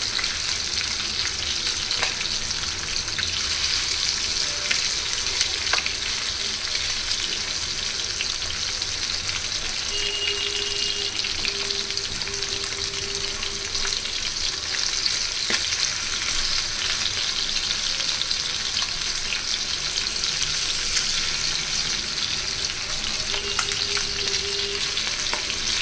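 Pieces of spice-coated fish sizzling steadily in hot oil in a nonstick frying pan on a high gas flame, with continuous crackling. A few sharp clicks come from a knife against the pan as the pieces are turned.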